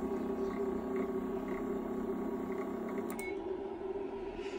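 Z-axis stepper motor of a CNC 6040 router jogging the spindle slowly downward, a steady whine that stops with a click about three seconds in. The axis is one whose zero keeps drifting between repeats.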